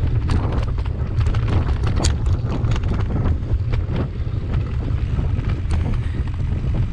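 Wind buffeting the microphone in a steady low rumble, over irregular clicks and knocks as a mountain bike rolls along a bumpy dirt singletrack.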